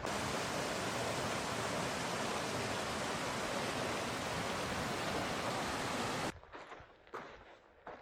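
Steady rushing of water, like a mountain creek or cascade. It cuts off suddenly about six seconds in, leaving only a few faint ticks.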